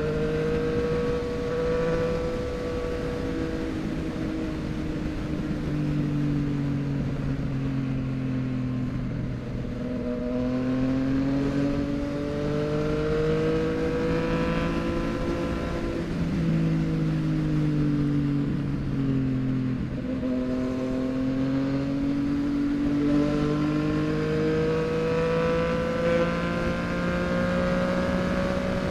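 Yamaha MT-09's 890 cc inline-three engine breathing through a full Mexx aftermarket exhaust while riding. Its pitch rises and falls several times as the bike speeds up and eases off.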